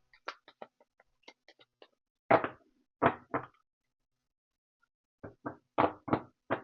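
A deck of cards being handled and shuffled: a run of light clicks, then several louder knocks as the cards are knocked together or set down.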